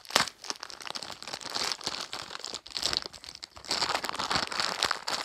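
Crinkly packaging being handled and torn open by hand: continuous crinkling and crackling with a sharp crackle just after the start and a denser stretch of crinkling near the end.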